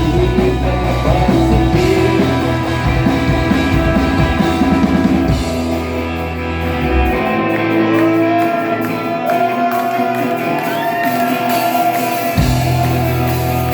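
Rock band playing an instrumental stretch with electric guitar and drum kit. The bass and low drums drop out for several seconds partway through, leaving sliding guitar lines, then come back in near the end.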